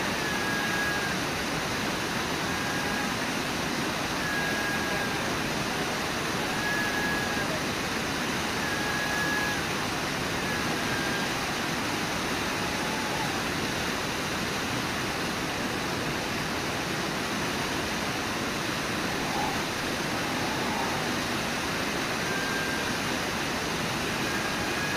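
Brooks Falls: the river's water rushing over the falls in a steady, unbroken roar. Short, faint high-pitched calls sound over it every couple of seconds in the first half and twice more near the end.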